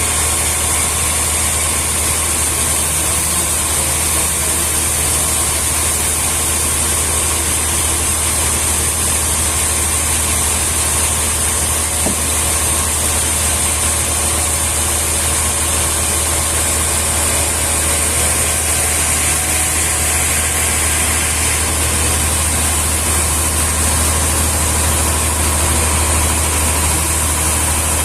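An engine running steadily, a constant low hum under an even hiss, with no change in speed.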